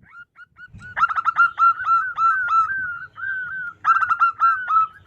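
Zebra dove (perkutut) cooing: a few soft notes, then a fast run of short, clipped notes, a brief pause, and a second run.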